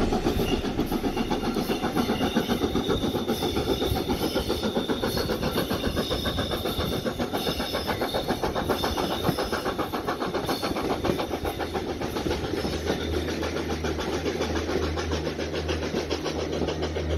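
Steam train running, heard from a carriage window: a fast, even pulsing rush of the moving train. A low steady drone joins about two-thirds of the way through.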